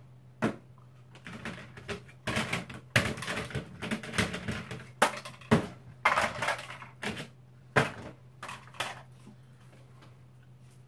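Portable gas stove and its plastic carry case being handled: a run of irregular clattering clicks and clunks that stops about nine seconds in.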